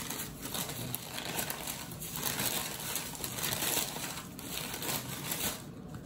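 Paper sheets that separate rounds of empanada dough rustling and crinkling irregularly as a hand lifts and shifts them in a stainless steel bowl.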